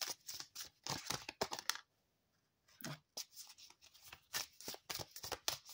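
A deck of tarot cards shuffled by hand: quick, crisp rustles and snaps of card edges, with a short break a little before the middle.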